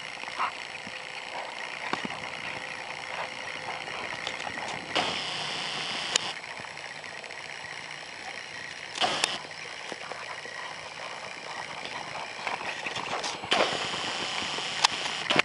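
Horse loping through soft arena dirt: scattered hoof thuds and scuffs over a steady hiss, growing louder as the horse passes close near the end.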